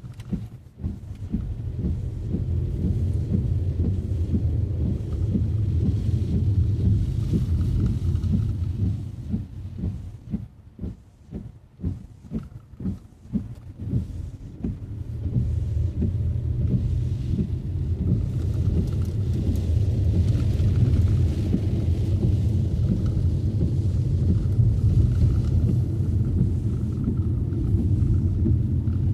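Low, steady rumble of a car driving on rain-wet city streets. About ten seconds in, the rumble eases for a few seconds and gives way to a run of short, uneven thumps before it comes back.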